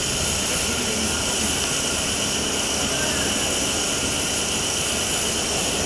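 A steady, loud mechanical drone with a constant hiss over it.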